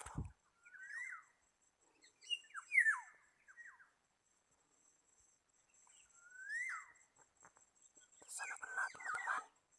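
Black-naped oriole calls: a few separate notes that each swoop up and then drop, with a longer burst of harsher, scratchy chatter near the end. A brief knock comes right at the start.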